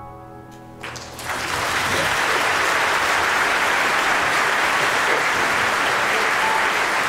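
The final held chord of a men's choir dies away, and about a second in audience applause starts, swelling quickly into steady clapping.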